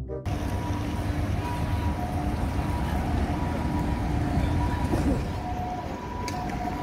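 Street traffic ambience: a steady rumble of buses and cars with faint steady tones in it. A music sting cuts off just after the start.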